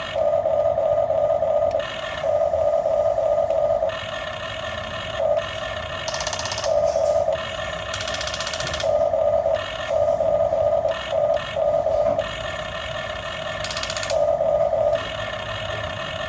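Small electric gear motors of a remote-control toy backhoe loader whining at one steady pitch, starting and stopping again and again in stretches of one to two seconds as the arm and bucket are worked.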